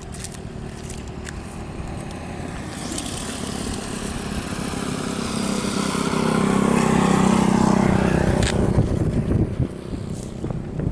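An engine passing by, growing steadily louder to a peak about seven seconds in, then fading.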